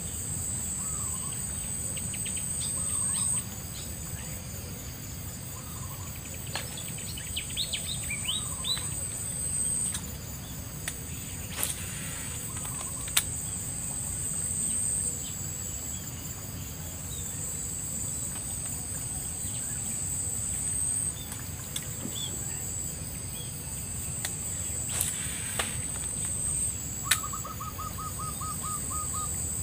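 Steady high-pitched drone of insects with scattered short bird calls, including a rapid trill near the end, and a few sharp clicks.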